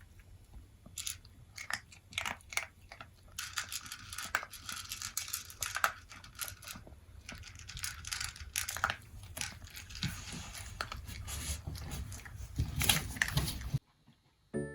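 Toy poodle eating its dog food, with irregular crunching and chewing sounds that cut off suddenly near the end.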